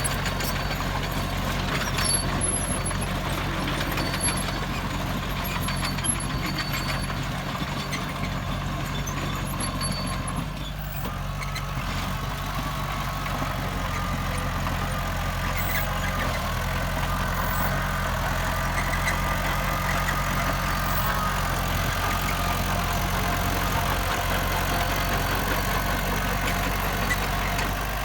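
Heavy diesel engine of earthmoving machinery running steadily, with a slight dip in level about eleven seconds in.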